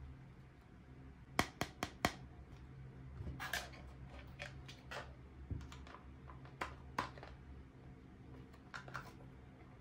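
Miniature toy kitchen pieces being handled: a quick run of four sharp clicks about a second and a half in, a brief rustle a little later, then scattered lighter clicks and taps, over a low steady hum.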